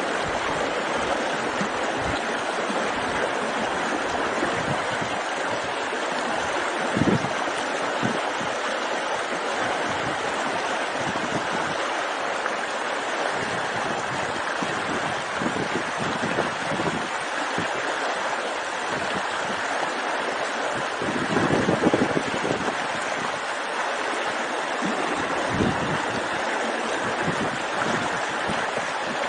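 A mountain river rushing steadily over stones, with a few brief low thumps.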